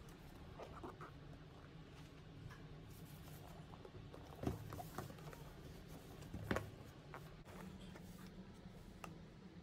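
Hands handling and turning a cardboard box, with faint scratching and rubbing of the card, and two short, louder knocks about four and a half and six and a half seconds in.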